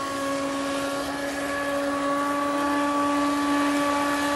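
Electric motor of a Thunder Tiger Desperado RC catamaran speed boat running at a steady speed: a steady whine of unchanging pitch over a hiss.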